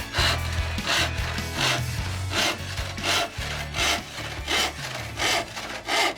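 Hand saw cutting through marine plywood in steady back-and-forth strokes, about three strokes every two seconds.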